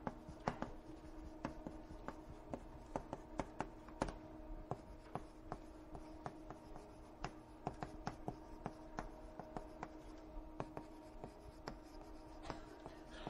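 Writing and drawing by hand during a lecture: irregular taps and scratches of the writing tool, several a second, over a steady low hum.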